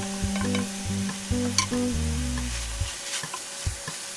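Sliced pork intestines and tongue sizzling in a stainless steel pan as they are sautéed with garlic and onion, stirred with a spatula whose strokes click against the pan. Background music plays over it, then stops about two-thirds of the way through.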